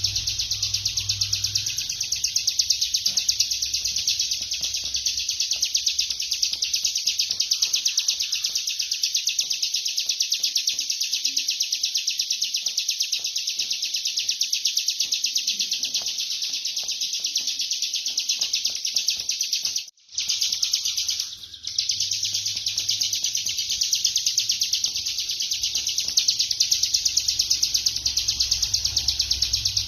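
Bar-winged prinia (ciblek kristal) singing its 'ngebren' song: a rapid, unbroken drilling trill of fast-repeated high notes that goes on without pause, apart from a brief break about twenty seconds in. A faint low hum sits underneath.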